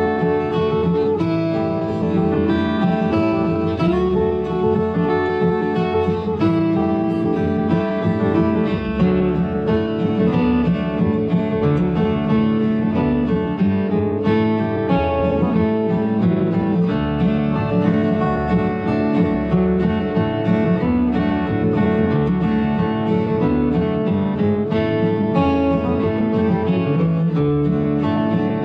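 Music played on guitar, plucked and strummed.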